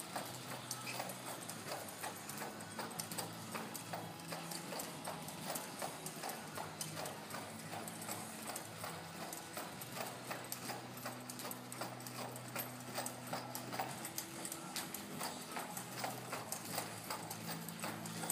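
Hoofbeats of a two-year-old Quarter Horse moving on the dirt footing of an indoor arena, in a steady, even rhythm.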